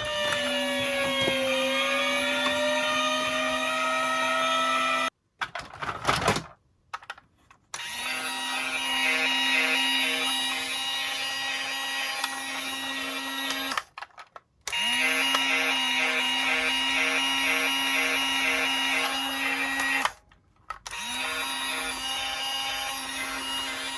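Toy emergency vehicles running with an electronic siren: a small motor's steady whir under a repeating, pulsing siren tone. It comes in four runs, each broken off by a short gap, the whir rising briefly as it starts up again.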